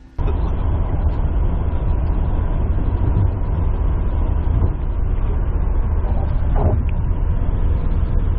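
Steady road noise inside a car moving at highway speed: tyre and engine noise, heaviest in the low end. It cuts in suddenly just after the start.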